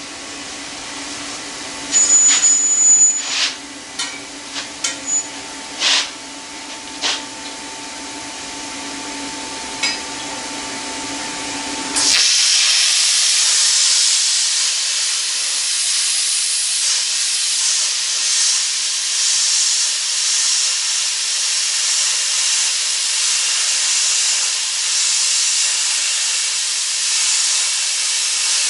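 A Lotus 3-in-1's plasma cutter cutting out the inside of a sprocket. First a steady hum with a few sharp clicks, then about twelve seconds in a loud, steady hiss of the cutting arc and its compressed air starts abruptly and keeps going.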